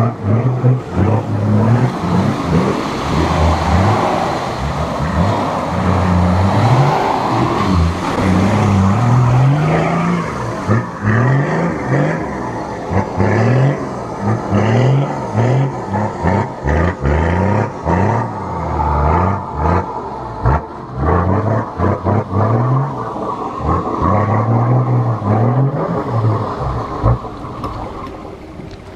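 A four-wheel-drive's engine revving up and down over and over, with knocks and bumps, as the vehicle struggles through mud and gets bogged.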